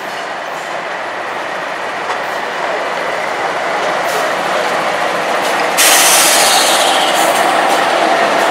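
Two diesel-electric freight locomotives, CP 9611 and CEFX 1051, pass close by at slow speed, their engines and wheels running steadily and growing louder. About six seconds in, a louder hiss joins suddenly as the second unit draws alongside.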